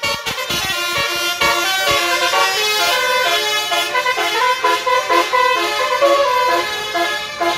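A tour bus's basuri telolet horn playing a quick tune: a run of short horn notes stepping up and down in pitch.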